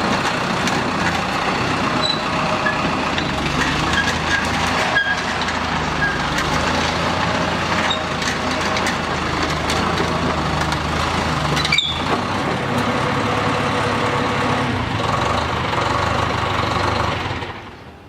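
Pile driver running: a loud, steady din of heavy engine and machinery, which fades out near the end.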